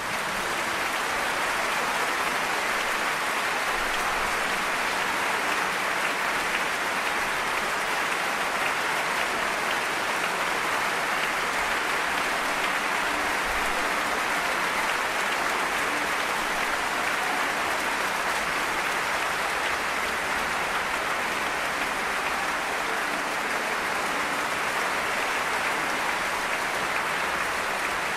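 Concert audience applauding steadily: a dense, even ovation that has just broken out after the silence at the end of the performance.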